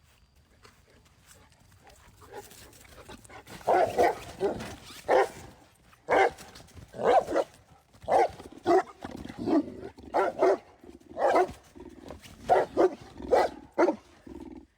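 Boerboel barking: a quick run of short, loud barks that starts about three and a half seconds in and keeps going.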